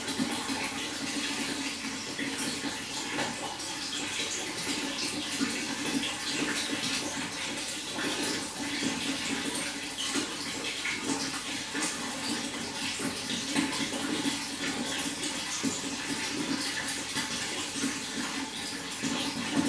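Running water, a steady continuous rush with many small splashes and drips mixed in.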